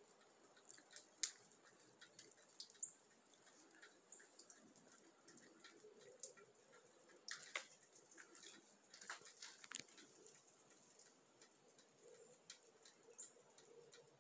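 Near silence, with faint scattered ticks and small clicks, a few louder ones about a second in and between about seven and ten seconds in.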